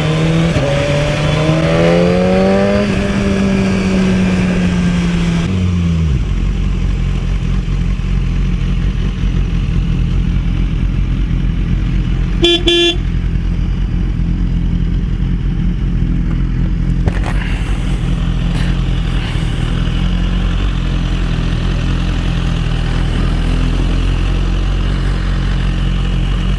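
Motorcycle engine pulling with a note that rises and then falls over the first few seconds, then settling to a low steady drone. About halfway through there is one short horn toot.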